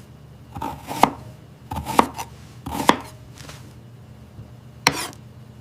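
Knife chopping on a cutting board: a handful of sharp, unevenly spaced chops, the last one near the end.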